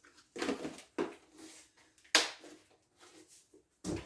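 Kitchen utensils being handled: a few short knocks and scrapes, with a sharp knock about two seconds in and another just before the end.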